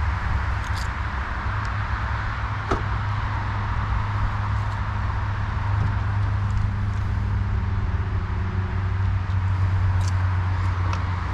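Steady low hum of a car, with a single sharp click about a quarter of the way in and a couple of light clicks near the end.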